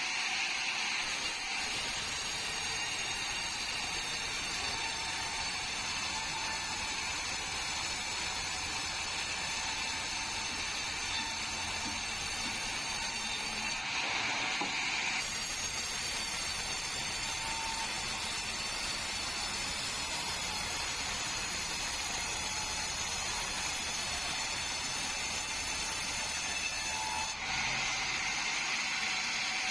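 Sawmill saw running steadily through a bengkirai hardwood log: a continuous mechanical rush with many steady high whining tones. The tone changes briefly about fourteen seconds in and again near the end.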